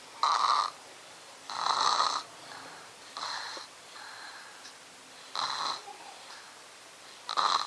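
Snoring: five loud snores, one every one and a half to two seconds, with quiet breathing between them. The uploader blames the snoring on a blocked nose.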